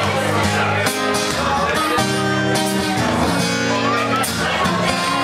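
Live band playing: a woman singing into a microphone over acoustic guitar, electric guitar and drums.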